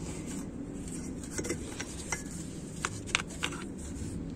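Paintbrush working automatic transmission fluid around the inside of a metal transmission input drum, with a handful of light clicks as the brush's metal ferrule taps the drum in the middle, over a steady low background hum.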